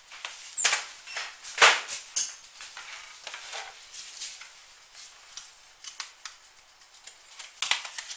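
Scattered knocks and clicks of things being handled, with a few sharper ones about a second and a half in, around two seconds in and near the end, over a quiet hiss.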